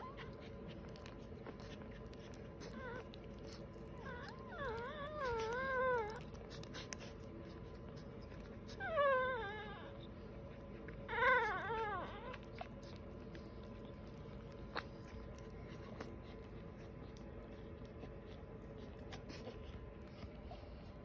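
Newborn American Bully puppies whimpering: three short, wavering high whines, about five, nine and eleven seconds in.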